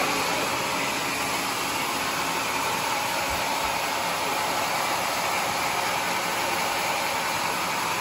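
Sawmill machinery running steadily: an even, continuous mechanical noise with a faint steady tone underneath. It does not rise or fall, which suggests the saw is running without cutting.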